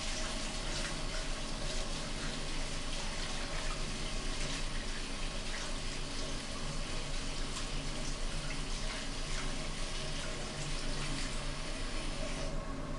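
Water running steadily from the bathroom tap and hose, cut off about half a second before the end.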